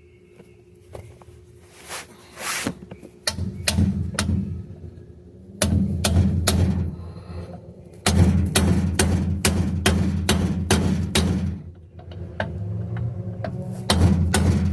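Hammer blows driving a press-fit part into a truck rear axle, struck in several quick runs with short pauses between.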